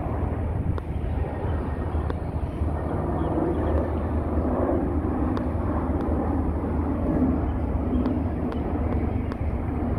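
Jet engines of an Airbus A350 on landing approach as it passes overhead: a steady low rumble.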